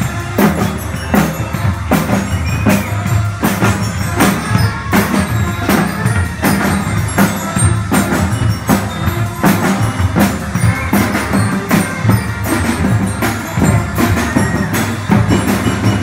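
Student band playing: snare drums, bass drum and a drum kit with cymbals keep a steady beat while brass carries a tune.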